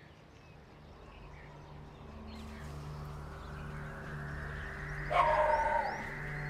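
An outdoor ambience fades in over a low steady hum and a slowly rising hiss, with faint short chirps. About five seconds in, a single loud animal call lasting under a second stands out, most like a dog bark.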